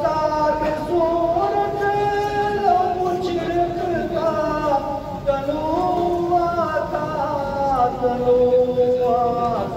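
A man singing a tarana, an Urdu patriotic anthem, solo into a microphone and amplified through a loudspeaker, holding long notes that step up and down in pitch.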